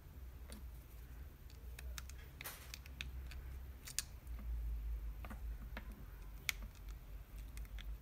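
Faint scattered clicks and small metallic snips of wire ends and spade crimp terminals being handled and worked with pliers, over a low steady hum.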